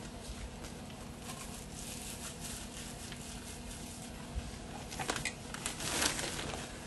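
Faint rustling and handling sounds with a few light clicks and taps, a little louder about five to six seconds in, over a low steady hum.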